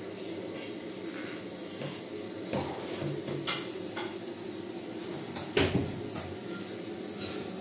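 A few sharp clinks and knocks of plates and foil trays being handled, the loudest a little past halfway, over a steady low background hum.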